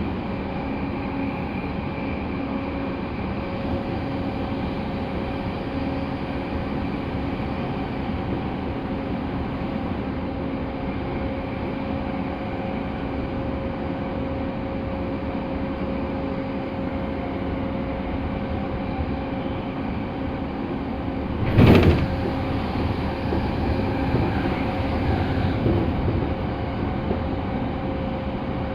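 Inside the cabin of an E217-series electric train running between stations: a steady rumble with a steady hum. About 22 seconds in there is a sudden loud thump, followed by a few seconds of rougher, louder rumbling.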